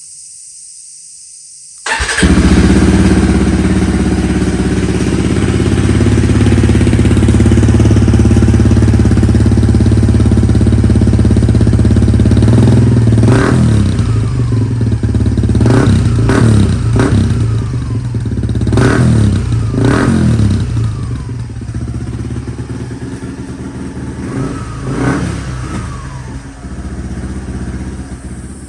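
Suzuki Gixxer SF250's single-cylinder engine through a Yoshimura GP-Magnum105 Cyclone full exhaust. It comes in suddenly about two seconds in and runs steadily. In the second half it is blipped: about six sharp revs, then it settles back.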